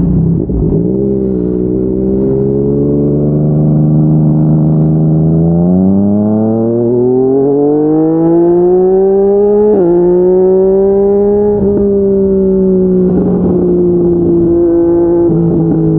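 Yamaha MT-09 inline-three engine through a Yoshimura R55 slip-on exhaust, running at steady revs, then rising smoothly in pitch for a few seconds. There is a quick drop in pitch about ten seconds in, after which it holds fairly steady.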